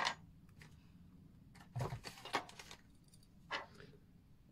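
Small, sharp metallic clicks and taps of steel watchmaker's tweezers and hand tools against an NH35A watch movement and its holder while a train wheel is fitted. There is a single click at the start, a quick cluster of clicks about two seconds in, the first with a dull bump, and one more click near the end.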